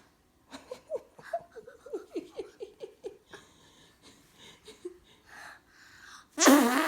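Giggling in a quick run of short breathy bursts, then near the end a child's loud imitation fart noise starts abruptly, noisy with a falling pitch.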